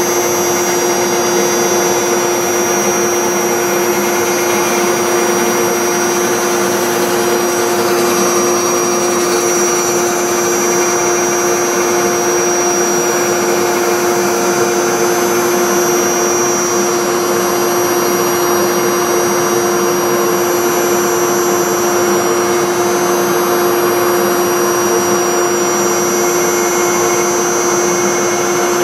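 Spindle of a 5-axis Legacy CNC router running at a steady pitch while its V-bit carves a scroll into a poplar blank: a constant whine over the even noise of the bit cutting wood.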